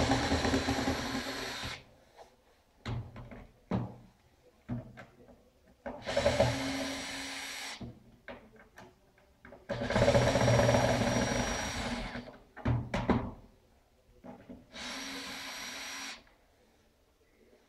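Cordless drill-driver unscrewing the screws of the metal corner brackets on a wooden chair frame, run in four bursts of about two seconds each. Short clicks and knocks of handling fall between the bursts.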